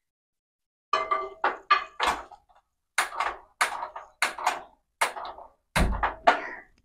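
Hand-held gas lighter clicked over and over at a gas stove burner, about ten sharp clicks with short ringing tails, until the burner lights near the end.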